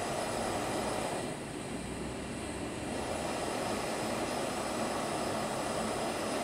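Shmel-2 petrol primus stove burning under pressure: the burner flame gives a steady, even rushing hiss.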